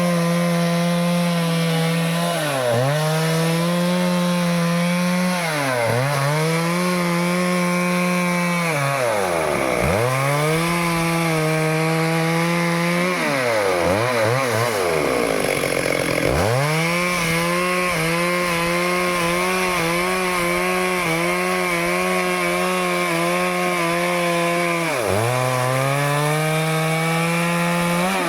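Stihl two-stroke chainsaw held at full throttle while cutting through a teak trunk. Its engine note sags and recovers again and again as the chain bogs down in the wood, with a longer, deeper bog about halfway through.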